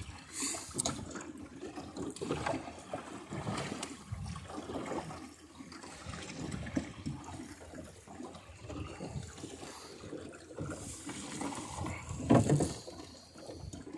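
Water splashing and gurgling irregularly along the hull of a small sailboat under way, with one louder burst about twelve seconds in.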